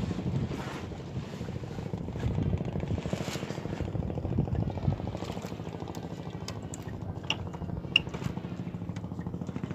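A small engine running steadily with a rapid low pulse, with a few light splashes and clicks near the end as the wet net is handled.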